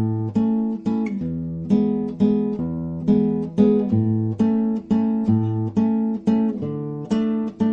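Background music: acoustic guitar strummed and picked in steady chords with a moving bass line.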